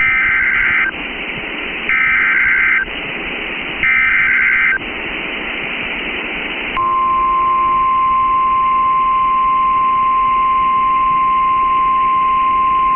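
NOAA Weather Radio Emergency Alert System tones: three short bursts of SAME header data, each under a second and separated by radio hiss. About seven seconds in, the steady single-pitch 1050 Hz weather-radio warning alarm tone begins and holds.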